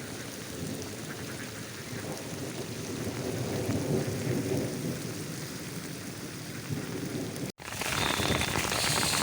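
Rain falling steadily, an even hiss and patter of drops. The sound cuts out for an instant about seven and a half seconds in, then comes back louder and more crackly.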